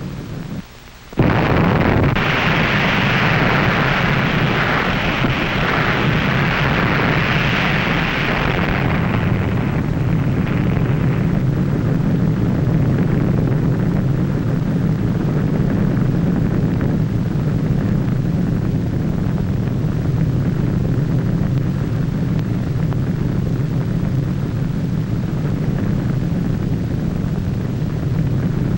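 Roar of an atomic explosion on an old film soundtrack. It starts suddenly about a second in with a loud hissing roar that fades over the next ten seconds or so, leaving a steady low rumble.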